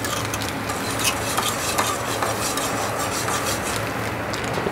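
Whisk and spoon stirring a thick, hot bean paste mixture in a stainless steel saucepan, scraping and clicking against the pot, over a steady low hum.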